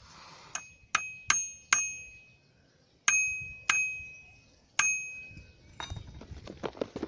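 Metal spoon striking the bars of a small toy xylophone: about seven ringing notes, four in quick succession, then three more spaced out, each dying away. This is the signal meant to tell the cats it is their turn to eat. Near the end come soft irregular taps and rustles.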